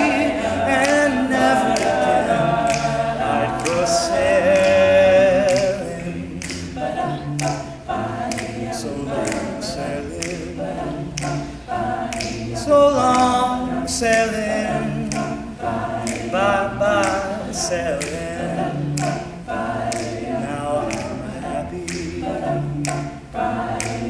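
Male a cappella group singing without instruments, the voices holding full, loud chords at first. About six seconds in the singing drops to a softer, wordless passage with a bass voice and a steady percussive beat.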